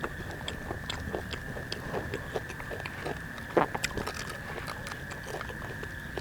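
Close-up crunchy chewing and biting of crispy fried chicken katsu, a string of irregular crackles with one louder crunch a little past halfway, over a steady high-pitched drone.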